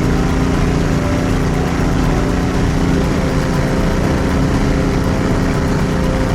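An engine running steadily at a constant speed, with an even hum and no change in pitch.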